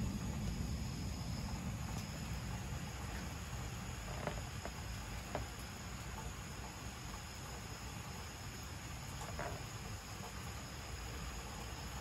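A thunder rumble dies away over the first second or two, leaving night insects chirring steadily at a high pitch. Underneath is a soft background hiss with a few faint clicks.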